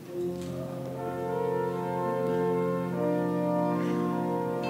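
Organ starting about a quarter second in and playing slow, sustained chords that shift every second or so, with more notes joining after about a second.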